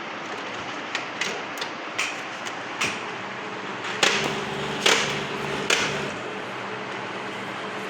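HP LaserJet 3005/3035 printer mechanism at work, clicking several times, then a motor starting to run with a steady low hum and three louder clunks. This is the noise problem the printer is showing.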